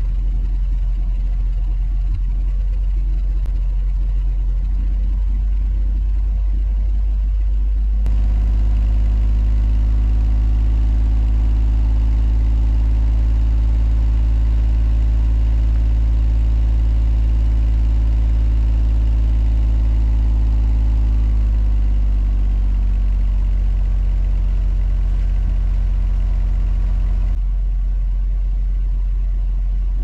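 Ford Freestar V6 exhaust at a steady fast idle of about 2000 RPM, a constant low rumble, while Sea Foam top engine cleaner is drawn in through the throttle body to clear carbon deposits. The tone shifts abruptly about eight seconds in and again near the end.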